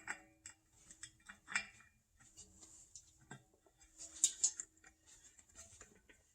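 Scattered light clicks, taps and scrapes of small metal plumbing fittings being handled: a quarter-turn ball valve and a 90° elbow. The loudest taps come about one and a half seconds and four seconds in.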